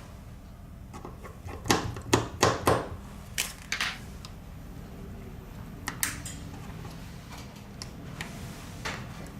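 A run of sharp clicks and knocks from hard objects being handled: about six close together early on, then a few scattered ones, over a steady low hum.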